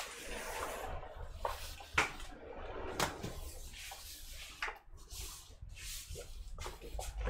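Workbench handling noise: a low rustle broken by a few sharp taps and clicks, as the laptop board and tools are moved about.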